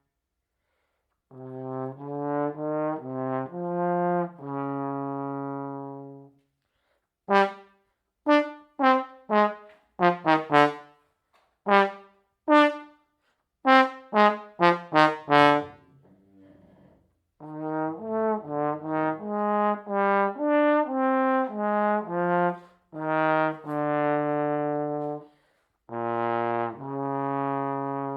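Solo trombone playing a slow melody. A phrase of held notes is followed by a run of short, detached notes about eight seconds in, then a longer legato phrase, ending on long sustained notes.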